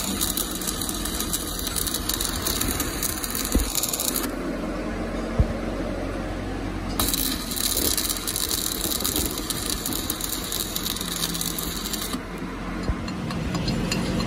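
Electric arc welding on a drive shaft: two runs of steady crackling, each about four to five seconds long, with a pause of about three seconds between them.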